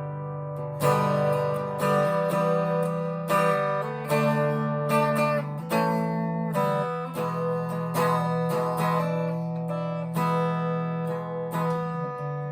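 Harley Benton TE-90 FLT electric guitar with Filtertron pickups, strummed in chords through a Fender Mustang LT25 amp. A new chord is struck about every second, and each one is left ringing.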